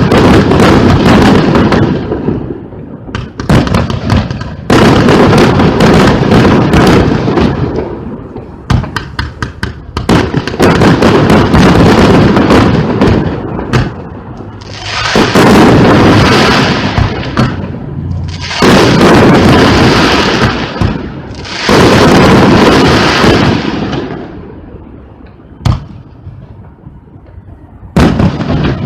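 A high-altitude fireworks battery firing: rapid volleys of launches and shell bursts, then three long, dense stretches of bursts about halfway through, tailing off to a few single bangs near the end.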